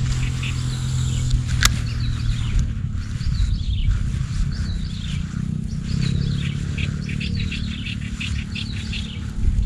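Small birds chirping, quick downward-sliding chirps repeated throughout, over a steady low rumble with a faint hum. One sharp click about two seconds in.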